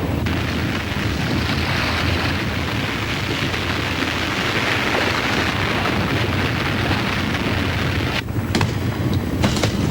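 Earthquake sound effect: a steady, loud deep rumble with a noisy hiss over it, and a few sharp crashes near the end.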